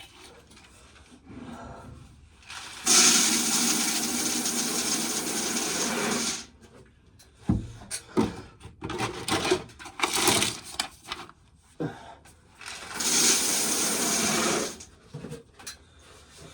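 Corn sheller running in two loud bursts of about three and a half seconds each, a dense grinding rush over a low hum as cobs are stripped of kernels. Lighter clicks and knocks of cobs and kernels come between the bursts.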